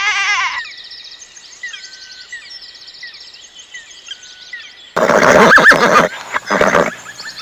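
A bleat ends in the first half-second, followed by small birds chirping faintly. About five seconds in, a horse neighs loudly.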